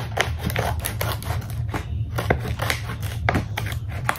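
Scissors cutting across the top of a large plastic bag, a quick irregular run of sharp snips and plastic crinkling as the bag is opened.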